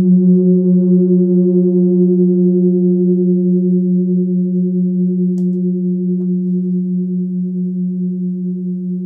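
Large gong with a hammered rim sounding a sustained low hum with a few higher overtones, drawn out with a small ball-headed mallet against its face and then left to ring, slowly fading with a slight waver. A tiny click about five and a half seconds in.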